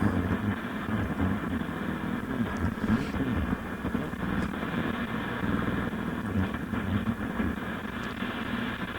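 Car AM radio just switched on and playing through its speaker: a muffled, band-limited sound with a steady hum, the station not yet clearly heard.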